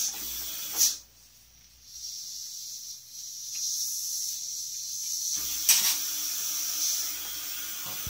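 Steady high hiss of dental cleaning equipment working in the mouth, the suction drawing out the rinse water. Two short knocks, about a second in and again near six seconds.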